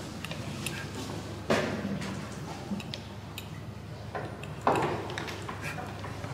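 Small clicks and taps of hand tools and small parts being handled on a workbench, with two louder brief clatters about a second and a half in and near the middle.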